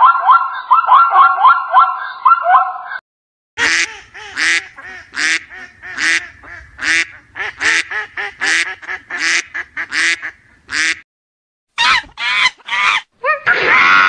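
A zebra barking in a quick run of high yelping notes for about three seconds, then a flock of domestic ducks quacking, about two loud quacks a second, with a short pause before a last few quacks near the end.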